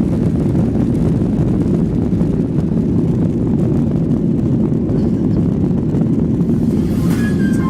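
Steady low rumble of a vehicle's engine and airflow, typical of an airliner cabin during the flight. Music starts near the end.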